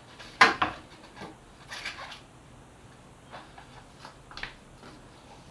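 Scrubbing and handling sounds on a painted motorcycle gas tank being cleaned with a magic eraser: a few short, separate rubbing strokes, the loudest about half a second in.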